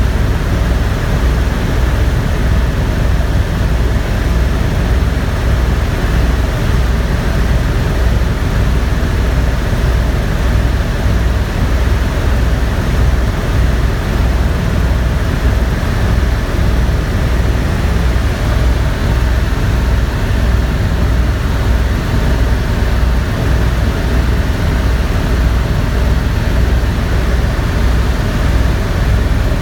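Helicopter in flight: engine and rotor running steadily, with a fast, even low beat from the rotor blades.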